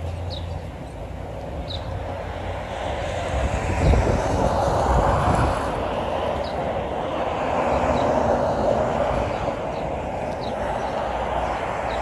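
A steady distant mechanical roar that swells in the middle and eases off again, with a low rumble under it and a few short, high chirps over it. The uploader calls it a weird sound that is always there and takes it for the power plant, though it could be a railroad or highway.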